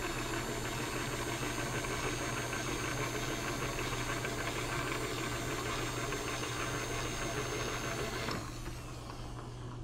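Lagun milling machine's table power feed traversing the table, a steady electric hum with a machine whir over it. The sound drops away about eight seconds in, and a single click comes at the very end.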